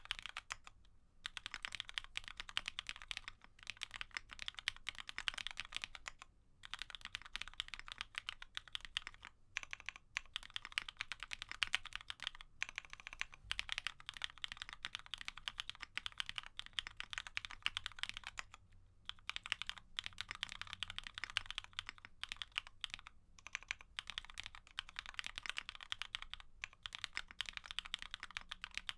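Fast, continuous typing on a GEONWORKS F1-8K custom mechanical keyboard with an FR4 poron-gasket plate, CherryCream switches (Cherry black housings with Kailh cream stems) and CMK keycaps. The keystrokes come in dense runs of clicks, broken by brief pauses every few seconds.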